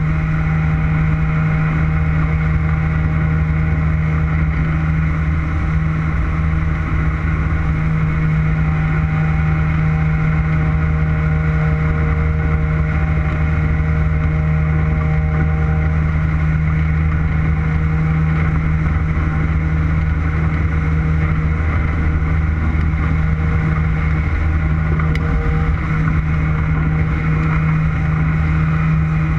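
Motorboat engine running steadily at a constant speed, its pitch unchanging throughout.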